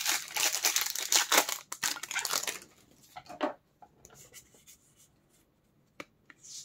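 Foil Pokémon booster pack wrapper being torn open and crinkled, busy for the first two and a half seconds. After that come softer rustles of handling and a single sharp tick near the end.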